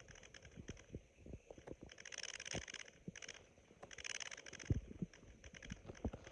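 Human stomach and gut sounds: sparse, faint pops and clicks, with two short raspy gurgles about two seconds in and again about four seconds in.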